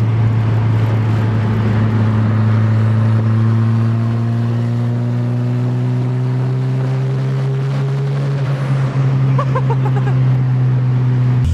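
Turbocharged Volvo 740 engine running at steady freeway speed, heard from inside the cabin, its pitch creeping slowly upward. Near the end the engine note drops suddenly.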